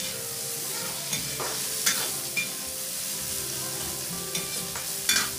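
Chopped onions sizzling as they fry in hot oil in a steel kadhai, with a steady hiss, while a spatula stirs them and scrapes or knocks against the pan a few times.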